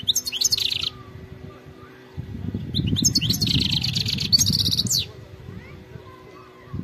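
European goldfinch singing: a short twittering phrase at the start, then a longer phrase of fast, high trills from about two and a half to five seconds in, over a low rumble.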